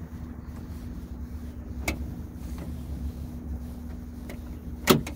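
Steady low rumble of a motor vehicle with a faint steady hum, a light click about two seconds in and a sharp click near the end.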